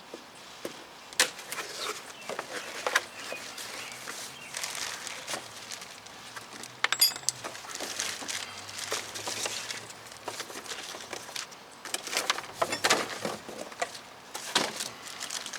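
Cardboard box and packaging being handled and opened: scattered knocks, scrapes and rustling, with a quick run of clicks about seven seconds in.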